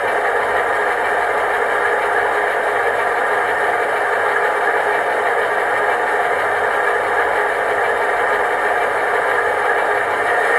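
Soundtraxx Tsunami DCC sound decoder in an HO-scale ALCO C-630 model playing a steady ALCO diesel engine idle through the model's tiny speaker, thin, with little bass.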